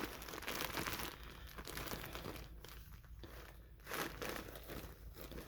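Plastic bag packaging around yarn skeins crinkling and rustling in irregular bursts as it is handled.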